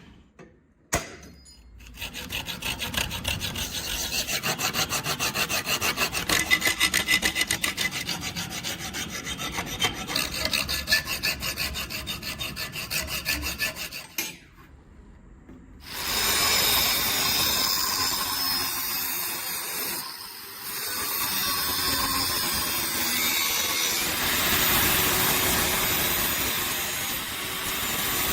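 A tool rasping against steel: fast, even strokes for about twelve seconds, then a short pause and a steadier, high-pitched rasping to the end.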